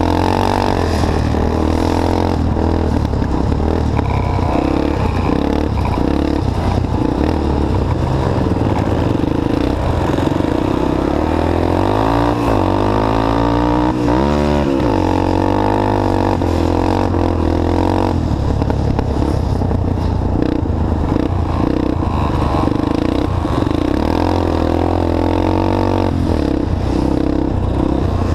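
Three-wheeled ATC's engine heard from the rider's seat, running hard under racing load with the revs rising and falling continuously. There is a marked swoop down and back up in pitch about halfway through.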